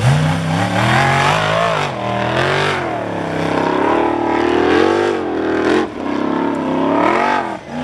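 A Formula Offroad hill-climb car's engine revving hard under load as the car claws up a steep sand slope. Its pitch surges up and falls back several times and drops briefly near the end.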